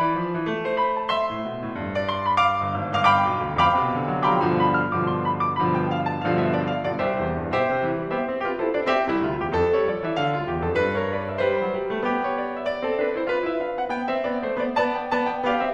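Background music: piano playing a continuous run of notes.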